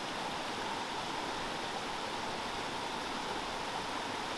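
Small stream's water running, a steady, even rushing with no breaks.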